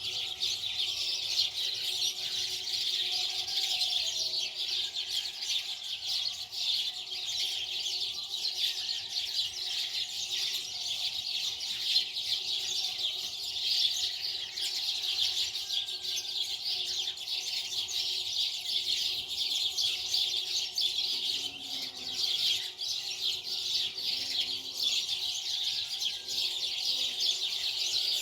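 Many small birds chirping continuously in a dense, unbroken chatter, over a faint steady hum.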